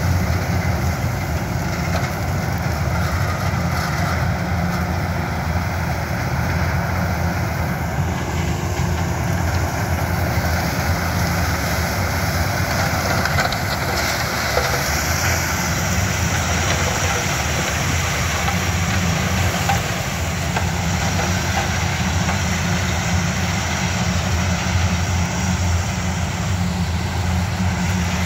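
Yanmar HS2000 sugarcane harvester's 187 hp engine running steadily under load while it cuts, chops and elevates standing cane.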